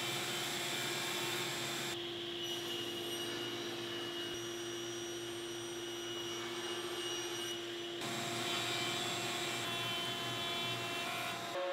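Steady hum of stationary woodworking machines running: a jointer and a table saw. The sound changes abruptly about two seconds in and again about eight seconds in.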